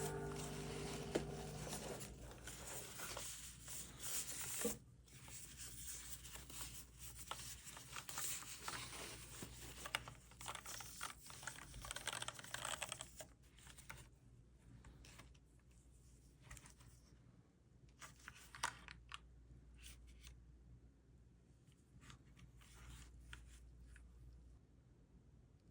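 Packaging being handled and torn open, rustling, crinkling and tearing for about the first thirteen seconds. After that come scattered light clicks and taps.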